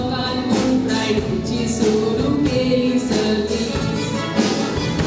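Live band performance of a duet: a woman singing held notes over a drum kit keeping a steady beat, about two strokes a second, with keyboard accompaniment.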